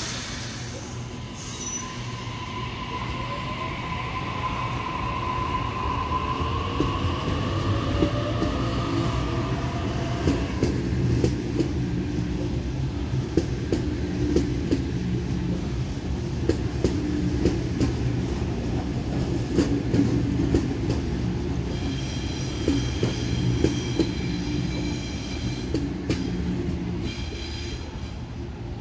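Double-deck electric suburban train pulling out: its motors give a rising whine over the first ten seconds or so, then the wheels rumble and click over the rail joints. In the last several seconds a high whine comes from an arriving Waratah double-deck train.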